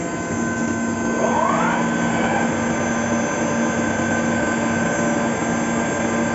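Fagima Jazz M 5-axis machining centre running: a steady machine hum with a spindle whine that rises in pitch about a second in, then holds steady.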